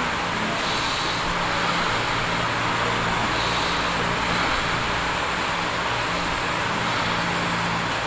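Steady background hum and hiss at an even level, with a low constant hum beneath it and no distinct events.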